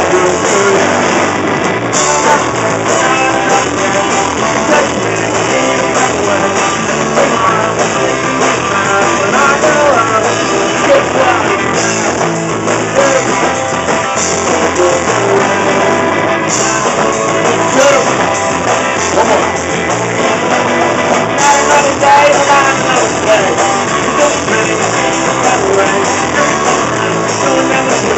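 Small live rock and roll band playing: electric guitar, drum kit and upright bass in a steady, driving groove.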